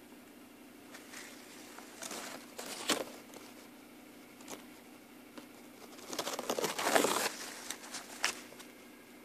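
Rustling, crackling noise in two bursts, a shorter one about two seconds in and a louder, longer one around six to seven seconds in, over a faint steady hum.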